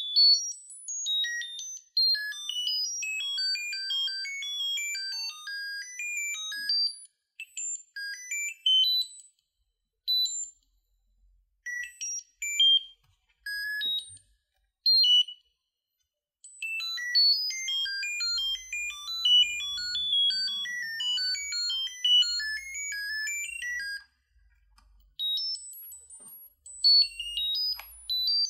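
Piezo buzzer on a microcontroller breadboard circuit beeping rapid runs of short tones that jump about in pitch at random, changing as a finger touches the circuit's loose sensing wire. The runs break off for a second or two a few times.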